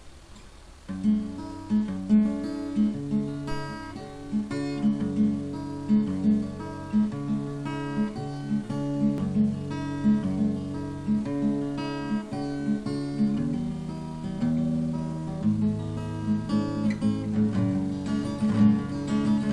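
Instrumental song intro on acoustic guitar playing a repeating rhythmic pattern. It comes in about a second in, after a faint opening.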